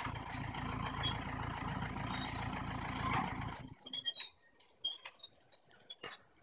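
A truck engine runs steadily, then stops about three and a half seconds in. Only faint scattered clicks and taps follow.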